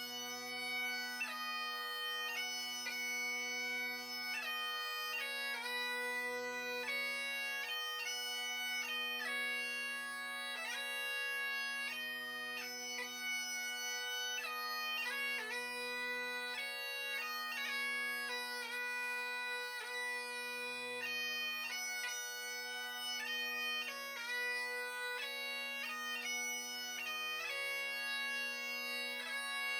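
Highland bagpipe playing a melody over its steady, unbroken drones.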